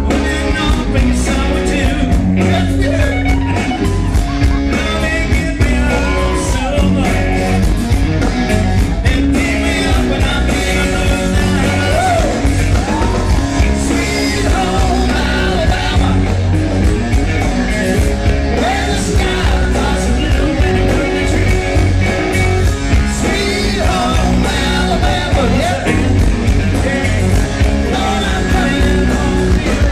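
Live rock band performing loud: a male lead singer over distorted electric guitar, with a heavy bass and drum beat running throughout.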